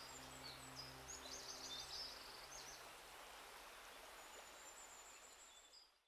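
Faint, high-pitched bird chirps and whistles over a soft outdoor hiss, clustered in the first half and with one longer whistle near the end, with a low held tone dying away about halfway through; everything fades out at the very end.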